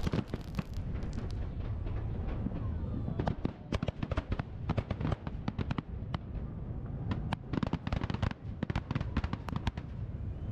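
Fireworks display: aerial shells bursting in rapid volleys of sharp bangs and crackles, bunched around the middle and again near the end, over a steady low rumble.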